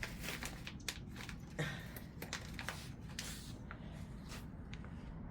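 Rustling and light clicks of hands handling stiff wire mesh and metal zip ties, busier in the first three seconds and sparser afterwards, over a steady low background rumble.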